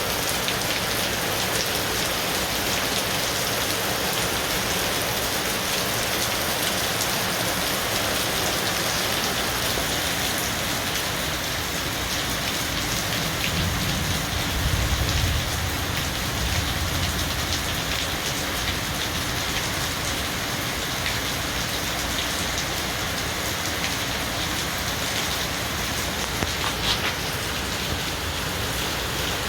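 Heavy rain falling steadily, with a low rumble of distant thunder around the middle.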